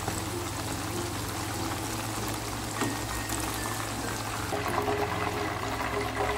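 Chicken pieces deep-frying in hot oil, a steady dense sizzle, as the pieces are turned and lifted out with tongs. Faint background music under it.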